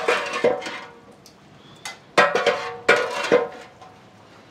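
Long metal ladle scraping and clanking against a large metal cooking pot as a thick masala is stirred, with ringing metallic strokes. There is a cluster of clanks at the start and two more about two and three seconds in.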